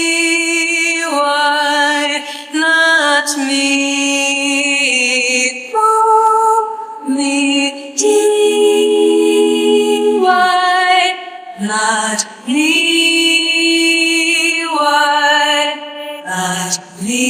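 Isolated studio vocal: a woman singing long held notes, with layered harmony voices stacked above and below the lead in places.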